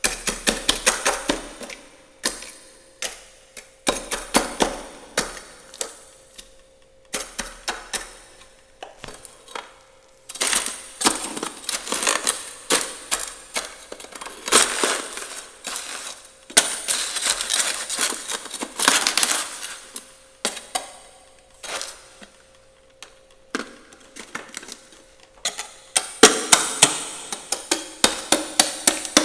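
Frost and hard ice being scraped and chipped off the inside of a freezer: rapid clicking, knocking strokes in bursts a few seconds long with short pauses between. The ice formed hard after the freezer lost power and refroze. A faint steady hum sounds underneath.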